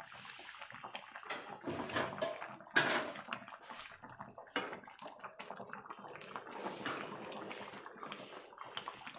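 A ladle stirs through simmering fish curry in a metal kadai, sloshing the gravy and knocking against the pan now and then, with the sharpest knock about three seconds in.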